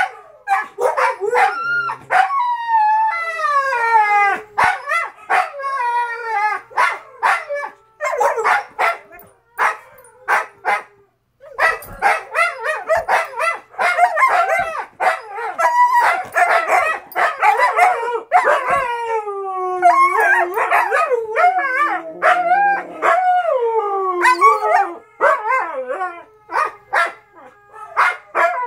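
Two huskies howling and complaining at each other: long wavering, gliding howls mixed with short barks and yips. There is a brief pause about ten seconds in.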